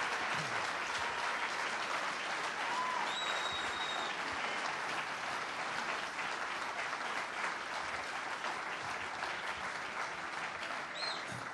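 Large audience applauding, a dense steady clapping that begins to fade near the end.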